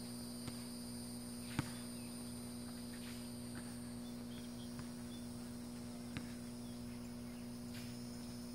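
Steady outdoor background drone, a low hum under constant high-pitched tones, with a few faint sharp knocks, the loudest about one and a half seconds in.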